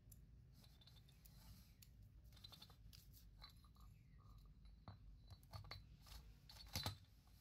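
Faint, scattered clicks and scrapes of metal transmission parts being handled during assembly, with a sharper click a little before the end.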